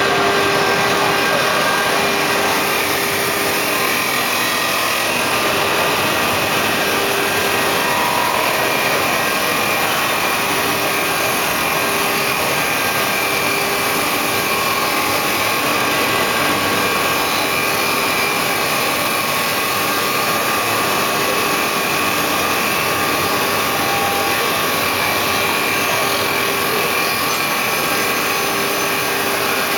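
CNC wood-turning lathe running, its cutter shaving a spinning wood blank into a baluster or leg profile: a steady, unbroken cutting noise with a faint whine.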